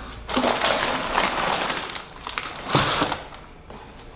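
Paper packing rustling and crinkling as hands dig through a cardboard box, over the first two seconds and again about three seconds in, the second time with a light knock.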